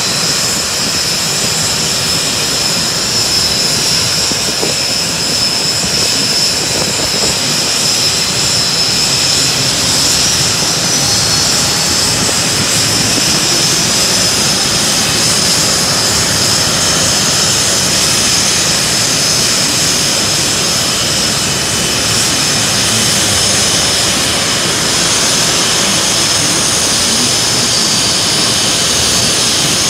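Aircraft jet engine running steadily: a loud, even rush with a high whine on top.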